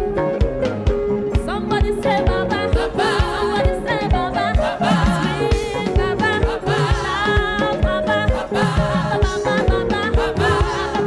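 Live gospel praise music: a band plays a steady drum beat under held instrument notes, and a woman's lead vocal with choir comes in about a second and a half in.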